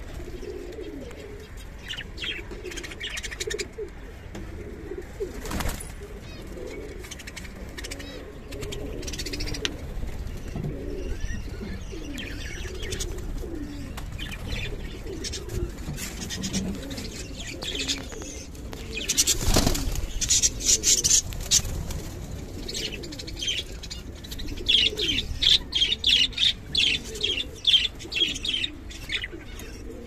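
Domestic pigeons cooing continuously, with budgerigars chirping and chattering in quick high notes over them; the budgie chatter grows denser and louder in the last third. A brief burst of wing flapping comes about two-thirds through.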